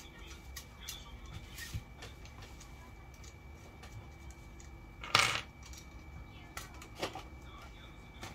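Phone holder being clamped and adjusted on a fishing rod's handle: scattered small clicks and handling noises, with one sharp loud clack about five seconds in and a smaller one near the end.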